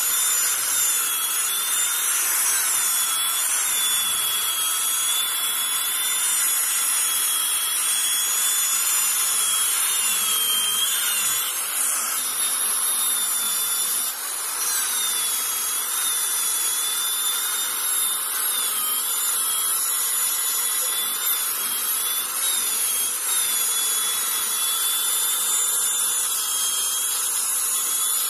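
Electric drill running with a red abrasive wheel scrubbing over carved wood, cleaning out the carved design. A steady motor whine that wavers slightly in pitch as the wheel is pressed on and moved, with a short dip about midway.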